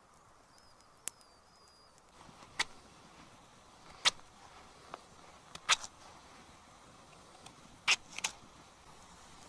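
Knife chopping a potato into cubes on a cutting board: about six sharp chops, a second or two apart.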